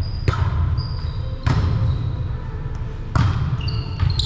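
A volleyball hit or bounced three times, about a second and a half apart, each a sharp impact echoing around a large gymnasium. Short high squeaks of shoes on the hardwood court come between the hits, over a steady low hum of the hall.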